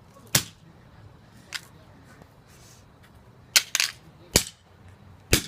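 A series of sharp pops or cracks, like cap-gun shots: about six at uneven intervals, one of them fainter and two coming close together in a quick pair.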